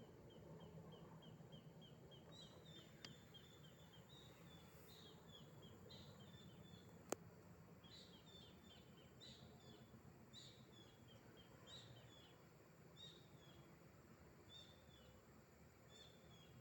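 Faint bird calls: a quick run of short, high notes at about six a second, then a series of high chirps repeated roughly once a second. A single sharp click about seven seconds in is the loudest moment.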